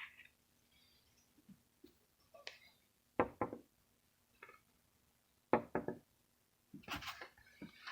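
Small clusters of sharp knocks and clicks, with a brief rustle near the end.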